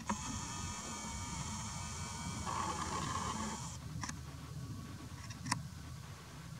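Camera zoom motor whirring steadily for nearly four seconds, then stopping abruptly, followed by two short clicks.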